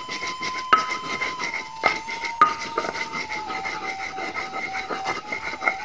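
Round grinding stone rubbed back and forth over a flat stone slab (batu lado), crushing ginger and garlic with salt into a paste: a gritty scraping in quick strokes with a few sharp stone-on-stone knocks. A thin steady whine runs underneath and slowly drops in pitch.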